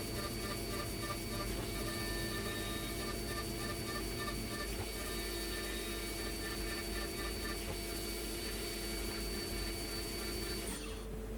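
Hurco BX40i CNC machining centre milling aluminium: a steady high spindle whine with a pulsing cutting tone underneath. Near the end the sound changes abruptly, with a brief falling whine as the high tones drop away.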